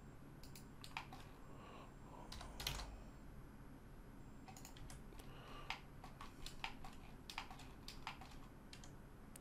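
Faint computer keyboard keystrokes and clicks, a dozen or so scattered at irregular intervals.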